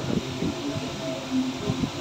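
Steady running noise inside a moving ropeway cabin, with faint background voices and a few brief low thumps.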